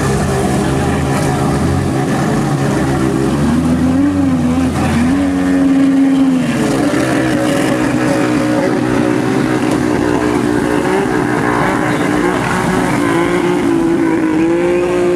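Jet ski engines running at speed, their engine note wavering and gliding up and down in pitch, stepping up about five seconds in and rising again near the end.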